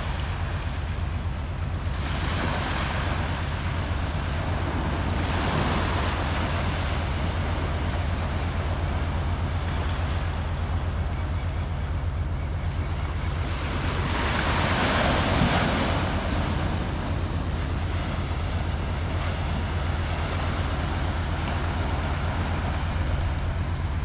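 Small ocean waves washing up and draining back on a sandy beach, each swash swelling and fading, the loudest about fifteen seconds in, over a steady low rumble of wind on the microphone.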